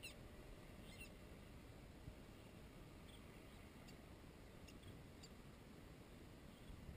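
Near silence: a faint low rumble of wind on the microphone, with a few faint short high chirps at the start and again midway.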